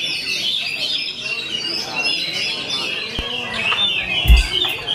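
Several Oriental magpie-robins (kacer) singing at once: a dense chorus of overlapping whistles, trills and chatter. A heavy low thump sounds about four seconds in.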